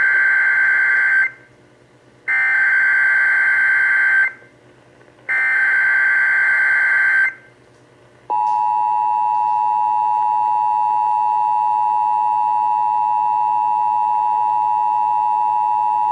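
Emergency Alert System activation tones: three SAME header data bursts of about two seconds each, a second apart, the first already under way. About eight seconds in, the steady two-tone attention signal begins and holds to the end. Together they mark the start of an EAS alert, here for flash flood warnings.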